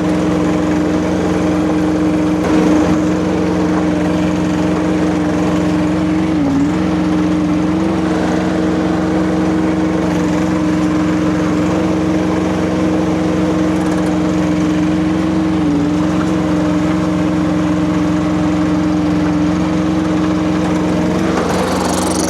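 Kubota diesel engine of a Rippa RS04 mini skid steer running at a steady, even speed.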